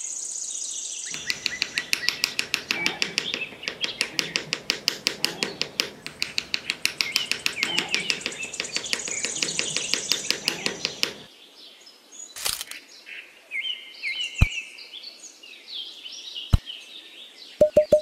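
Chirping birds and insects. For the first ten seconds a fast, even chirp of about five pulses a second dominates, then gives way to scattered high chirps. A few sharp taps sound in the second half.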